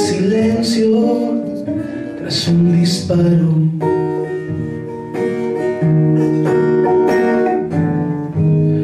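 A man singing with his own acoustic guitar accompaniment, a live folk-rock song.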